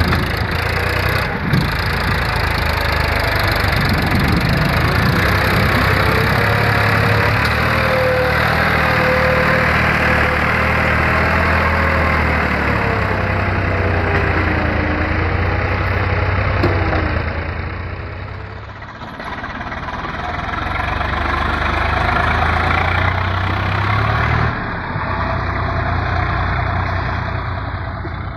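Diesel tractor engine running loudly and continuously, its pitch wavering and stepping as the revs change, with a brief drop in level a little past halfway.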